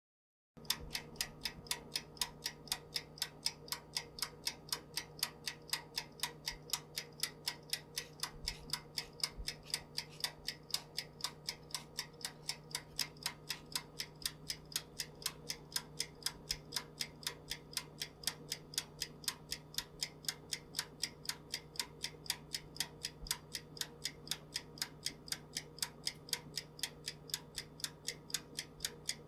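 Oven ticking steadily, about three to four sharp ticks a second, over a faint steady hum.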